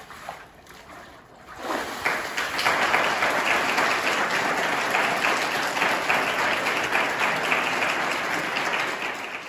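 A congregation clapping and applauding, swelling in about two seconds in and then holding steady as a dense patter of many hands.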